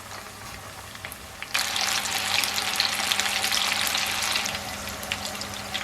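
Flour-coated popcorn chicken pieces deep-frying in hot oil: a low, steady sizzle that suddenly turns much louder and crackling about a second and a half in, then eases slightly near the end.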